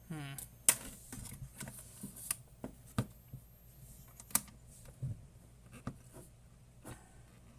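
Hands handling a small electronic instrument and its parts on a workbench: irregular sharp clicks and light knocks. The clicking opens with a brief falling squeak.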